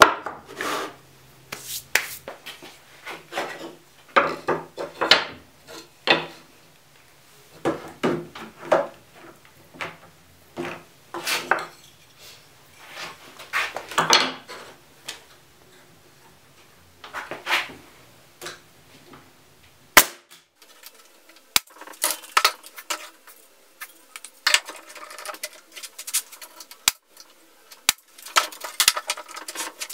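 Thin mitered pallet-wood frame strips clattering and knocking against each other and a plywood table top as they are handled and set in place: irregular sharp clacks throughout, the sharpest about two-thirds in.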